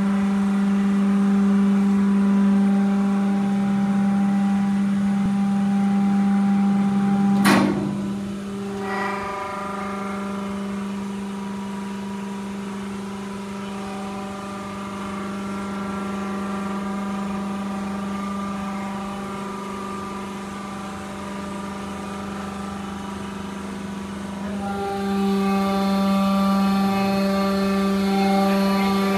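Hydraulic press running under load, its pump motor giving a steady pitched hum. One sharp crack comes about a quarter of the way in. After it the hum is quieter, and it grows louder again near the end.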